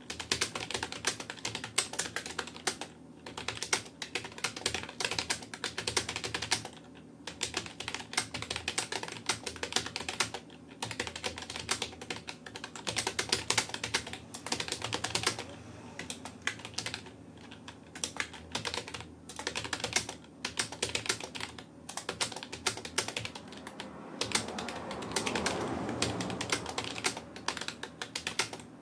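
Fast touch-typing on a Rapoo computer keyboard: a rapid, continuous patter of key clicks broken by brief pauses.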